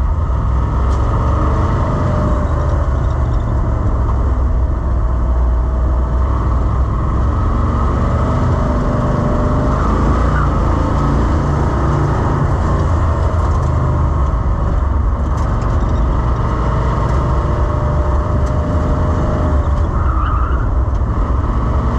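Ford Mustang's engine working hard through an autocross run, heard from inside the cabin, its pitch rising and falling as the throttle opens and closes.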